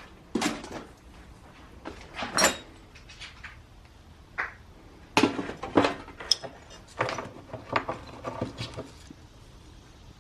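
Irregular knocks and clattering, busiest through the second half.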